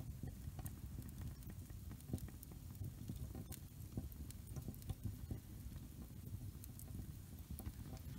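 Split logs burning in the open firebox of a small wood-burning tent stove. There is a low, steady rush of the fire with scattered crackles and pops throughout.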